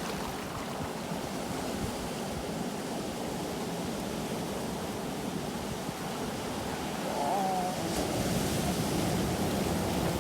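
Sea waves washing on the shore, a steady rush of surf that grows a little louder about three-quarters of the way through.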